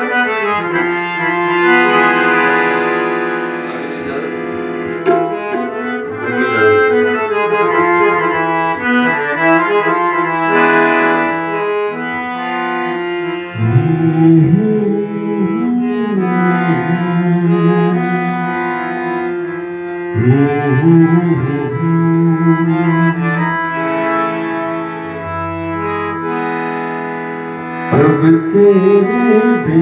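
Instrumental introduction on harmonium and keyboard: a reedy melody of long held notes over a steady drone, with tabla joining in, its bass drum bending in pitch, about halfway through.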